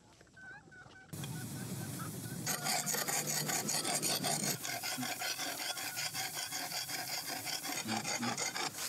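A metal blade being sharpened on a rough rock, scraped back and forth. The scraping starts about a second in and soon settles into steady, evenly repeated strokes.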